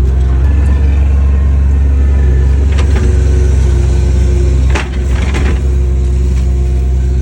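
Diesel engine of compact construction equipment running steadily under load. About five seconds in, the level briefly dips and there are a few sharp knocks.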